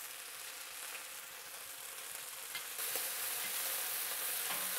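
Small chunks of cornstarch-coated beef sizzling as they sear in a hot oiled wok. The sizzle gets louder about three seconds in as a metal wok spatula turns the pieces, with a few light spatula taps.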